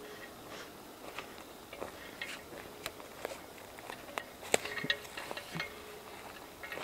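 Footsteps crunching through leaf litter and twigs on a forest floor, about two steps a second, with a sharper snap about four and a half seconds in.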